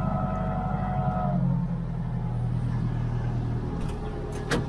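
International 1455 tractor's diesel engine running steadily under plowing load, heard from the cab; its note shifts slightly a little over a second in. A sharp click near the end.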